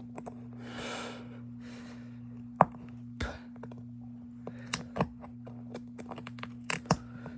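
Scattered sharp clicks and taps of tools prying and picking at the small parts of an iPhone XR's front camera and Face ID module, the loudest snap about two and a half seconds in, over a steady low hum. A breathy exhale, like a sigh, about a second in.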